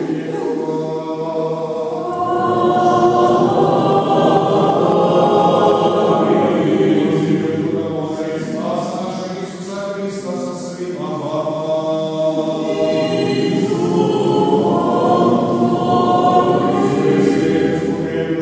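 A group of voices singing Byzantine liturgical chant a cappella, in long phrases with a short break about halfway.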